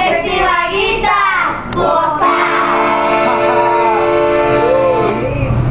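Button accordion playing cumbia chords, held steady from about two seconds in, with high voices singing and calling over it at the start.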